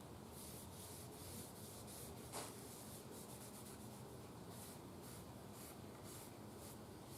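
Faint, repeated rubbing strokes as dark walnut stain is worked thinly onto the wooden radio cabinet to tone up its faded finish, with one small tick about two and a half seconds in.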